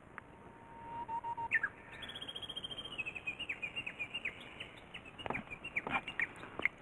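A bird singing: a long rapid trill that begins about two seconds in and slowly falls in pitch, followed by a string of separate chirps. A few faint clicks come near the end.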